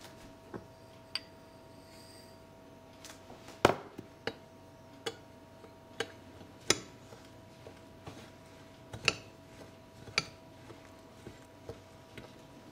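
Glass bowls clinking and tapping together as spices are tipped from small glass prep bowls into a glass mixing bowl and stirred. It is a string of sharp, irregular clinks, some with a short glassy ring, the loudest about a third of the way in and again near three-quarters. A faint steady hum runs underneath.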